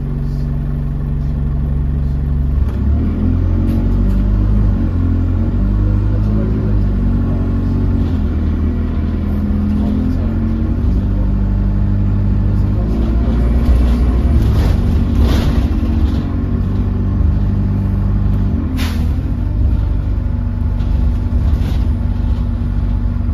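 Alexander Dennis Enviro200 single-deck bus heard from inside the passenger saloon, its engine and drivetrain running under way. The engine note changes in steps, the first about two and a half seconds in. There is one brief sharp noise a few seconds before the end.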